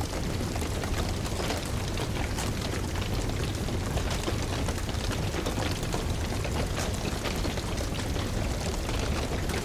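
Wood fire crackling, with frequent small irregular pops over a steady hiss and low rumble.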